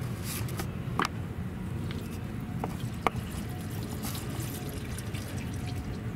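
Engine oil dripping from the oil pan as the drain plug is unscrewed with a socket, with two sharp clicks of metal on metal, over a steady low hum.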